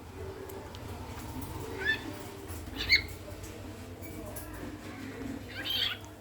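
Pet bird giving three short calls: a rising chirp about two seconds in, a sharp call a second later, and a harsher, longer call near the end, over a steady low hum.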